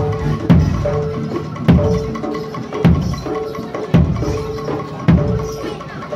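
Live jaranan ensemble music: deep drum strokes about once a second keep a steady beat under a melody of held notes, with lighter percussion between.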